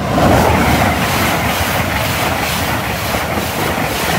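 LNER Azuma high-speed train passing through the station at speed close by: a loud, steady rush of wheels on rail and air, starting suddenly at full strength.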